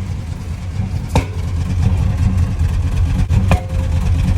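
1997 Chevrolet Silverado's 5.7 L Vortec V8 running with a steady low rumble, broken twice by a sharp bang, about a second in and again about three and a half seconds in. The bangs are the random misfire banging out the exhaust, which the owner puts down to a cracked, carbon-tracking distributor cap crossfiring.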